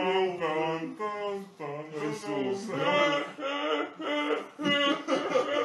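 A woman laughing hard in long, sing-song, pitched cries, one drawn-out burst after another with short breaks for breath.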